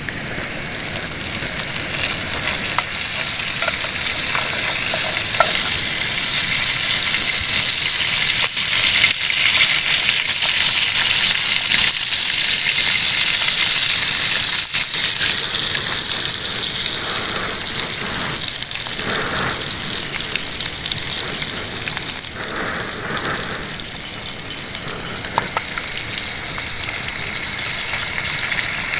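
Food frying in a pan, a steady sizzling hiss with fine crackling throughout.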